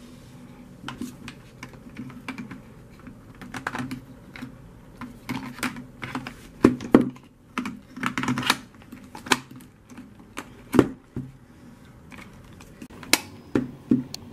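Irregular hard plastic clicks and knocks as a Black+Decker cordless drill's battery pack is handled and pushed into the drill's base, with several louder knocks in the middle and one near the end.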